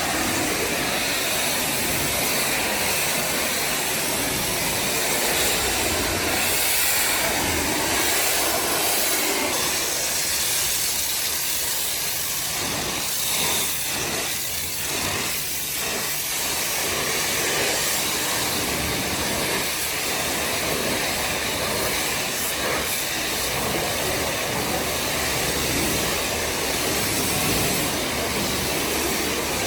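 High-pressure washer spray hissing steadily against a car's body, a continuous rushing noise with no pauses.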